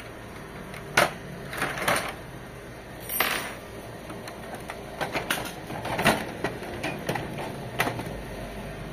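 Scattered sharp clicks, taps and small clatter of hard printer parts being handled while an HP Officejet 7612 inkjet printer is taken apart, with a short scraping noise about three seconds in.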